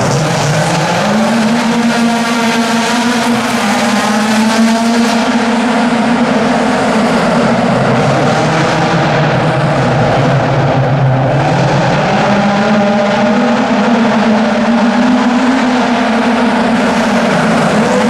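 Volkswagen Golf Mk2 race car's engine revving hard, its note rising and falling again and again as the car accelerates and lifts off between the cones of a slalom course, inside a large exhibition hall.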